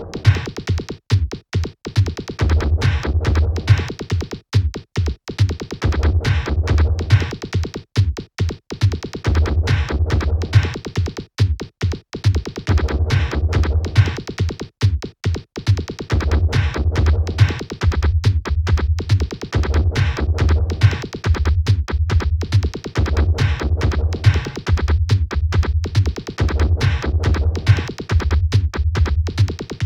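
Roland R-8 drum machine playing a beat with Kawai R50 drum sounds from a WaveR8 card: a fast, even run of sharp drum hits, with a deep bass part that comes in and drops out every few seconds.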